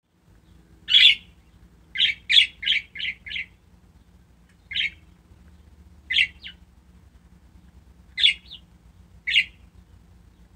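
Pet budgerigars chirping in short, sharp calls: one about a second in, a quick run of five just after, then single and paired calls every second or two.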